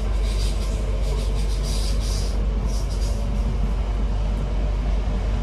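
Class 323 electric multiple unit heard from inside the passenger car while running: a steady low rumble of the train on the track, with a few short bursts of hiss in the first few seconds.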